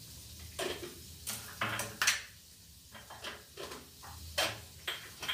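Kitchen items being handled on a countertop: a run of irregular knocks and clinks, the loudest about two seconds in.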